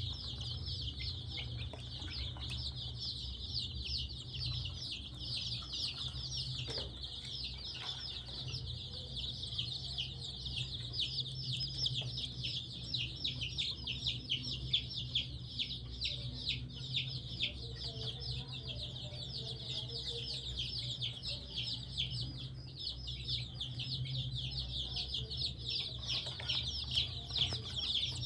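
A brood of week-old domestic chicks peeping nonstop, many high cheeps overlapping, over a low steady hum.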